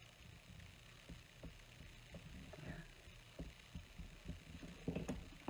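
Light taps and ticks of a pencil and metal ruler marking cardstock on a craft mat, over a low steady hum, with a few louder knocks near the end.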